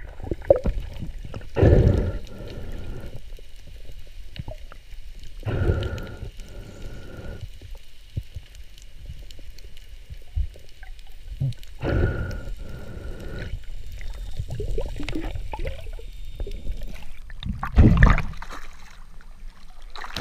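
Muffled underwater water noise around a freediver, with low rushes and knocks. Three louder surges each carry a short, steady high tone, and a loud splashy burst comes near the end as the diver reaches the surface.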